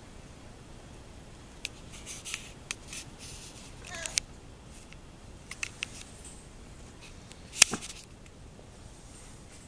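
A young kitten giving one short, falling mew about four seconds in, among scattered clicks and rustles. A sharp knock near the end is the loudest sound.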